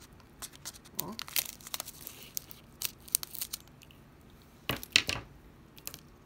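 Small plastic bag of diamond-art drills crinkling and crackling as it is handled and its top is cut open. The loudest crackle comes about three-quarters of the way through.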